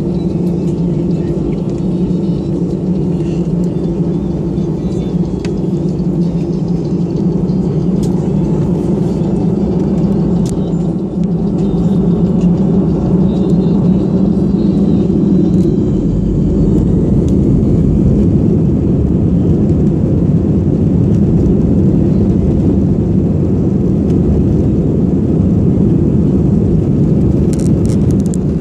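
Jet airliner taxiing, heard from inside the passenger cabin: a steady engine and rolling rumble that grows stronger about halfway through.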